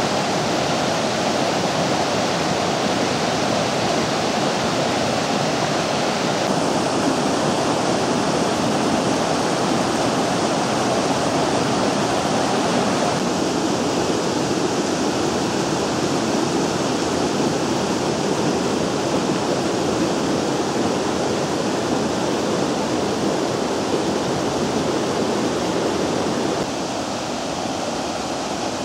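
Water of the Vydra river rushing steadily. Its tone shifts slightly about six and thirteen seconds in, and it drops a little in level near the end.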